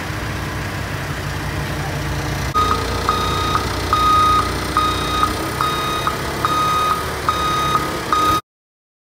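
A heavy vehicle's engine idling steadily. About two and a half seconds in, a backup alarm starts beeping, with about eight high beeps of uneven length, until the sound cuts off abruptly near the end.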